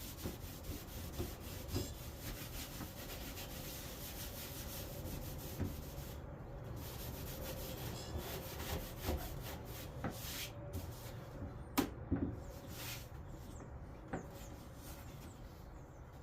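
Wood being rubbed with an abrasive: a steady scratchy hiss, broken by a few sharp knocks, the loudest a little past the middle.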